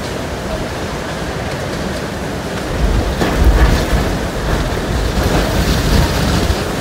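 Hurricane eyewall wind with driving rain, a steady roar of noise, the wind buffeting the microphone in heavy low gusts that swell about three seconds in.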